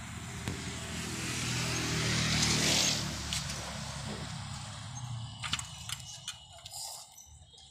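A motor vehicle passing: its engine hum and road noise swell to a peak about three seconds in, then fade away. A few sharp clicks come near the end.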